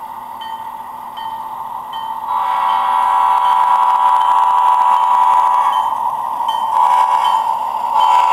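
HO-scale Alco RS3 model diesel locomotive's DCC sound decoder ringing its bell, a strike about every two-thirds of a second. A louder steady chord-like tone from the locomotive's sound joins about two seconds in, breaking off briefly near six seconds and again near eight.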